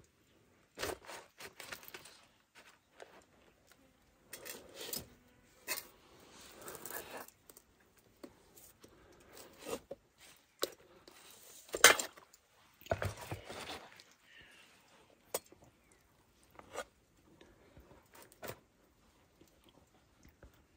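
Scattered clicks, scrapes and rustling of things being handled, with a sharp knock about twelve seconds in.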